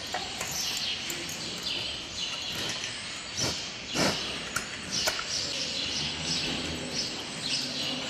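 Small birds chirping over and over, each a short falling chirp. A few sharp knocks come around the middle, the loudest about four seconds in.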